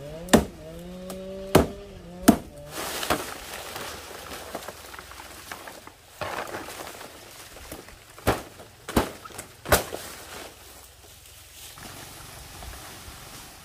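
Sharp knocks: four in the first three seconds and three more, quickly one after another, about eight to ten seconds in. Over the first two seconds a drawn-out call rises in pitch.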